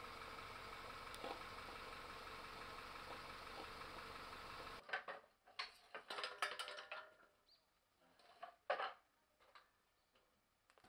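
A steady engine-like hum for about the first five seconds. Then a long-handled tool scrapes and clatters through broken clay roof tiles in irregular strokes, the loudest about nine seconds in.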